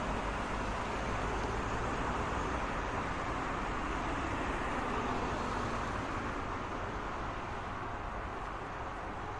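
Road traffic: a steady wash of tyre and engine noise with a low rumble, easing off slightly toward the end.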